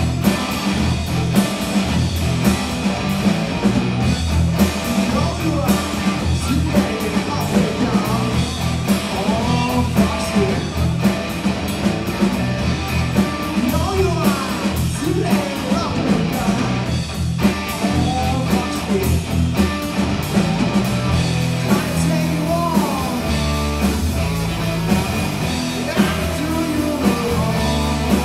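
Live blues-rock band playing: electric guitars over bass and drums, with a steady beat.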